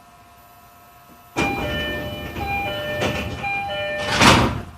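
Passenger doors of an E531-series electric train closing at a station stop: a repeating two-note door chime sounds over the rush of the doors sliding, ending in a loud thud as they shut, about four seconds in.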